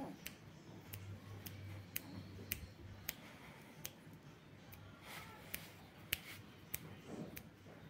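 A run of short, sharp clicks or snaps at irregular intervals, about one to two a second, over faint background hiss.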